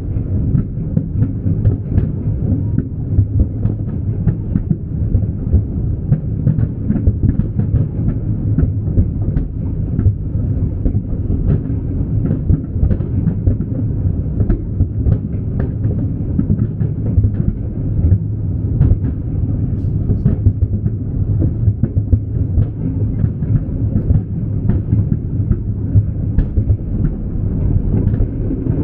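Aerial fireworks display: a dense, continuous rumble of shell bursts with frequent sharp cracks and pops.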